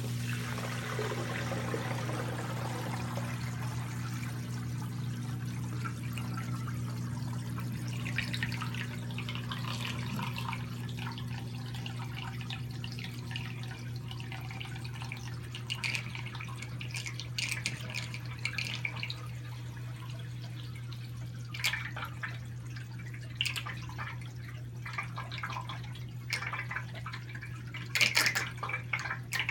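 Washing machine drain pump humming steadily while it pumps water out through a drain hose whose end is wrapped in a sock lint filter, the water spilling and splashing into a utility sink. The splashing grows busier partway through, with a few sharper splashes near the end.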